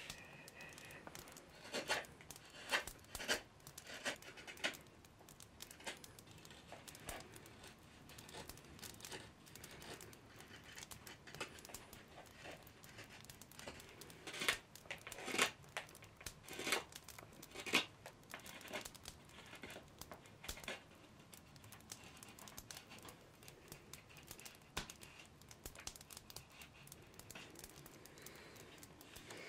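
Irregular scraping and rubbing strokes from hand work on a wooden bow stave. A few louder strokes come two to five seconds in, and a cluster of them about halfway through.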